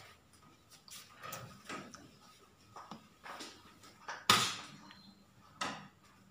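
Repeated short scraping strokes of a hand applicator rubbed over a vinyl sticker letter, pressing it onto the sign's reflective sheeting. One stroke a little past the middle is sharper and louder than the rest.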